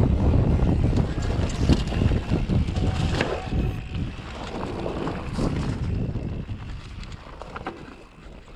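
Mountain bike riding a leaf-covered dirt singletrack: tyres rolling over dry leaves and dirt and the bike rattling over bumps, with wind on the microphone. The sound fades gradually lower toward the end.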